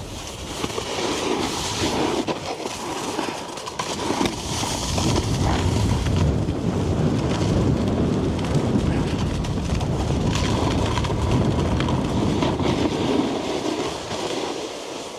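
Snowboard base and edges sliding and scraping over packed snow, with wind rumbling on the microphone; it gets louder about four seconds in as the board picks up speed and eases off near the end.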